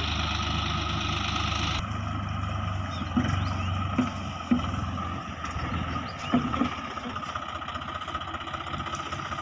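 Swaraj 744 FE tractor's three-cylinder diesel engine running steadily in the mud, with a few short, sharp knocks in the middle.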